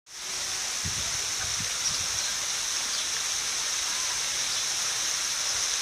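Steady, high-pitched outdoor hiss that stays unchanged throughout.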